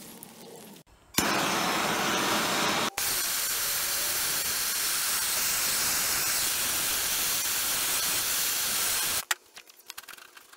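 Handheld gas torch flame hissing steadily as it heats a freshly forged steel saw handle hoop, with a brief break about three seconds in, then cutting off near the end. The heating is the first stage of an oil-blackened patina on the steel.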